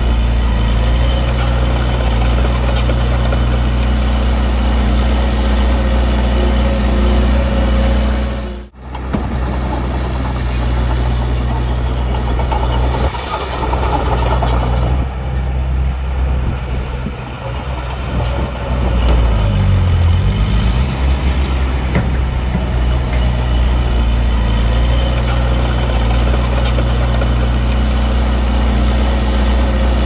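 Diesel engine of heavy earthmoving equipment running steadily. The sound drops out for an instant about a third of the way in. About two-thirds through, the engine pitch dips and comes back up.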